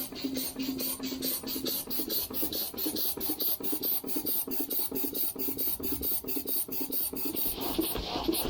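Small steam engine and pump running on low-pressure steam, a steady rhythmic chuffing of about five beats a second with hiss. A broader rush of steam hiss builds near the end.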